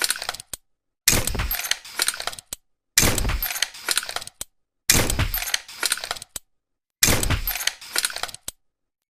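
Tranquilizer pistol sound effect firing four times, about one shot every two seconds. Each shot is a sharp pop with a low thump that fades over about a second, followed by a couple of short clicks.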